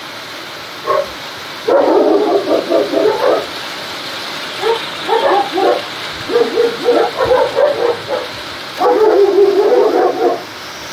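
Dog barking repeatedly in several runs of quick barks, over a steady background hiss.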